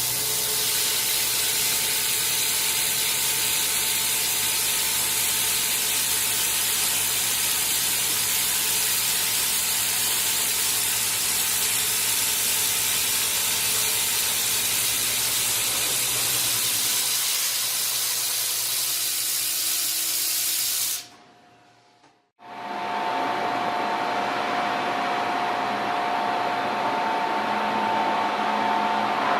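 Industrial cutting machine running with a loud, steady hiss and faint steady tones. About 21 s in it cuts off abruptly for about a second and a half, then resumes as hiss with a steady two-note whine.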